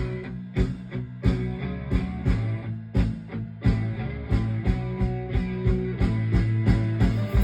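Rock band music: electric guitar over sustained bass notes and a steady drum beat of about two hits a second.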